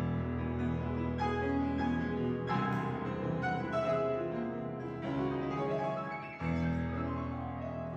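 Piano music: chords played over held low notes, with a new chord struck near the end.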